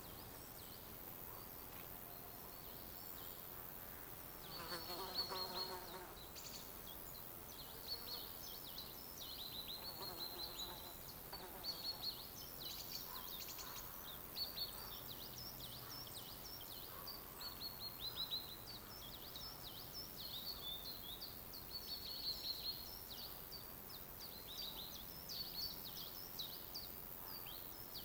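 Forest ambience: small birds twittering in quick, high chirping runs over a faint steady hiss, with a lower call about five seconds in.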